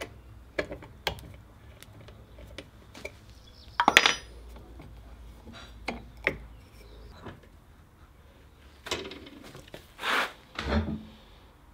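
Wooden dowel and metal lathe parts handled by hand: scattered light knocks and clicks, a sharp metallic clank with a brief ring about four seconds in, and two duller knocks near the end.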